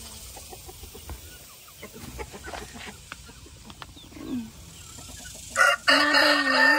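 Chickens clucking with scattered short calls, then a rooster crowing loudly about five and a half seconds in: a short opening note and then one long, steady crow that is still going at the end.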